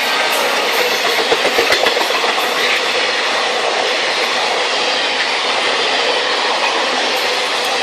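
Indian Railways train running, the steady rumble of the carriage with wheels clicking over rail joints, a quick run of knocks about a second in.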